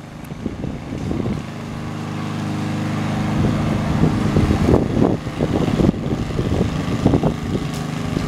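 A motor running steadily with a low hum that slowly grows louder, with irregular crackles over it in the second half.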